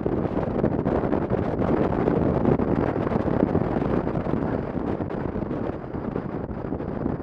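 Steady rush of wind over the microphone of a camera on a moving motorcycle at road speed, a little louder around the middle and easing near the end.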